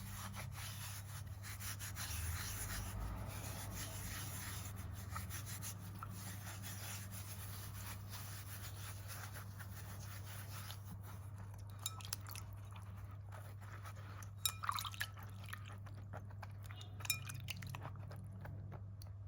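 Steady low hum with faint handling noise, broken by a few small clicks and clinks, several in a quick cluster about three-quarters of the way through.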